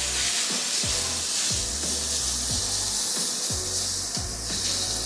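Onions and peppers frying, a loud steady sizzle that starts suddenly as they hit the hot pan, over background music with a steady beat.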